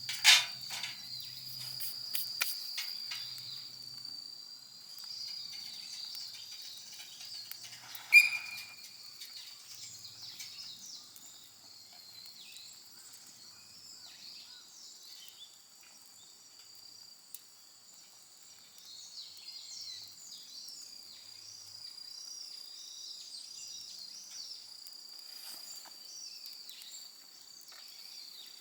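Insects trilling steadily at a high pitch, with bird chirps joining in the second half. A few sharp snaps come in the first seconds, and one loud sharp crack with a brief high note about eight seconds in.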